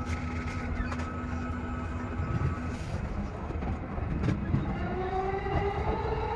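E233 series electric train pulling away and accelerating, heard from inside the driver's cab. Its inverter-driven traction motors give a steady tone, then a whine that rises in pitch from about five seconds in, with a couple of sharp clicks from the wheels and track.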